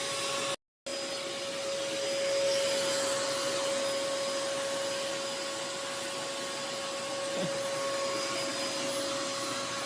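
Household vacuum cleaner running steadily with a constant whine over a rushing hiss, its nozzle passed over a small dog's coat to pull out loose hair. The sound cuts out completely for a moment about half a second in.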